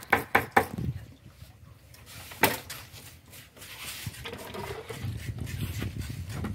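Four quick sharp knocks, then a single louder knock about two and a half seconds in, over a low steady background rumble.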